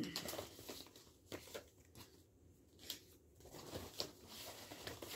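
Reading cards being handled and shuffled by hand: faint, irregular papery flicks and rustles as the cards are sorted and turned.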